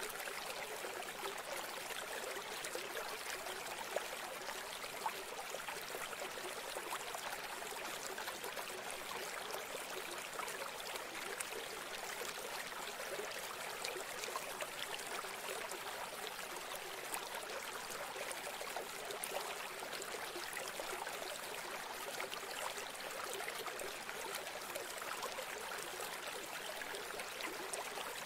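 Steady rush and trickle of flowing river water, unbroken and even throughout.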